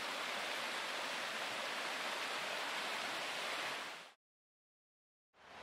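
Steady rushing of a small mountain stream. It fades out about four seconds in to a second of silence, then fades back in near the end.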